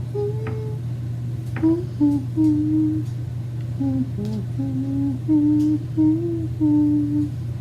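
A person humming a slow tune with closed lips, held notes stepping up and down in pitch, over a steady low hum.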